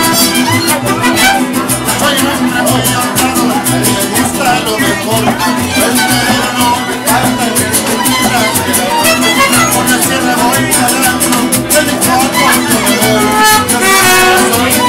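Mariachi band playing live: violins carry the melody over a steadily strummed guitar and the deep plucked bass of a guitarrón.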